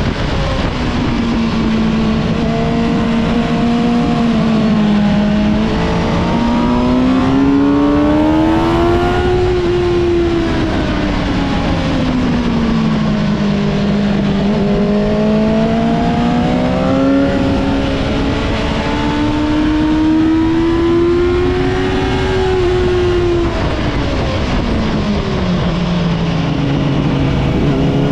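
Suzuki sport bike's engine heard onboard at track speed, its pitch climbing under throttle and sweeping down under braking into corners several times, over a constant rush of wind.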